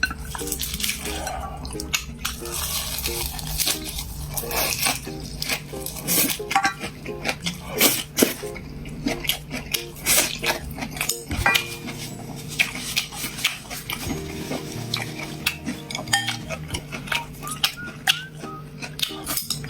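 Eating utensils clinking and knocking against plates and bowls, many light irregular taps, over quiet background music.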